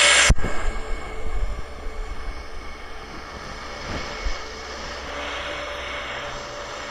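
Airplane engine noise: a steady drone and rushing hiss that gets quieter over the first few seconds, then holds steady.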